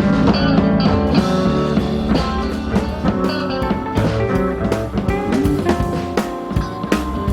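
Background music: a band piece with electric guitar and drum kit, in a bluesy rock style.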